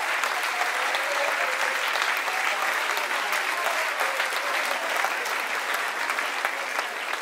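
Concert audience applauding steadily, a dense mass of clapping with a few voices heard among it.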